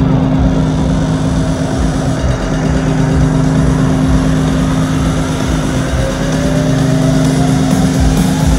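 Electronic bass music played very loud over a concert sound system: a heavy, sustained low drone with a slowly rising synth sweep over it, the kind of riser used in a build-up.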